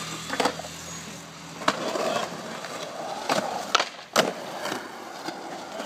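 Skateboard wheels rolling on concrete, with several sharp clacks of the board hitting the ground and a truck grinding along a metal rail.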